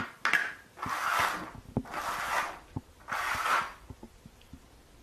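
Three rubbing, scraping swishes about a second apart, with light knocks and taps between them.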